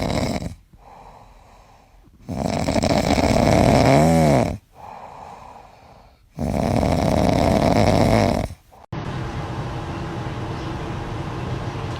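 A pet snoring loudly: long, noisy snores every few seconds with quieter pauses between them. Near the end it cuts to a steady, quieter hiss.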